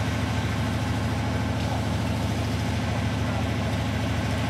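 Large truck engine idling steadily: an even, low hum that does not change.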